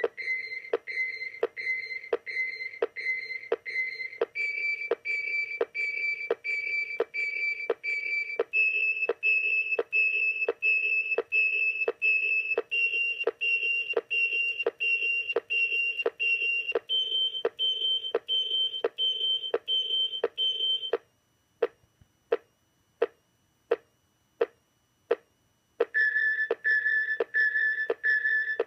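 Master Replicas Aliens Motion Tracker replica beeping steadily, about two to three beeps a second, the pitch stepping up several times as the tracked alien signal closes in. The beeps then break off for a few seconds, leaving only faint ticks. Near the end a new tracking sequence starts at a lower pitch.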